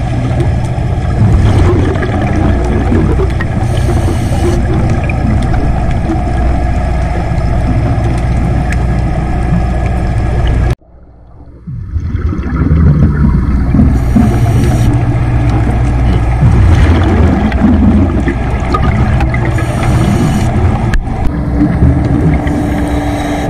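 Underwater recording of a steady low boat-engine hum carried through the water, with a diver's regulator exhale bubbles hissing about every five seconds. The sound cuts out abruptly a little before halfway and fades back in over a second or two.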